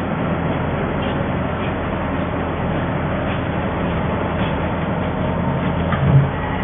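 Automatic cardboard baler running with a steady mechanical hum, and a single short knock near the end.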